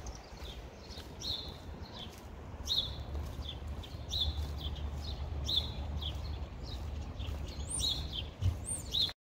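Small birds chirping, with short high chirps repeating about once or twice a second and a couple of higher swooping calls near the end, over a steady low rumble. The sound cuts off suddenly near the end.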